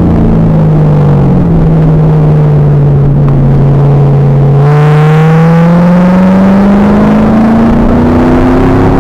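2000 Pontiac Trans Am Firehawk's LS1 V8 heard on track through an onboard camera, loud and overdriven. The engine note holds and sags slightly, then about halfway through the throttle opens and the pitch climbs steadily as the car accelerates.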